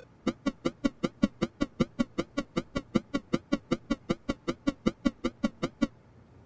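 A rapid, even run of short pitched electronic blips, about five or six a second, stopping near the end.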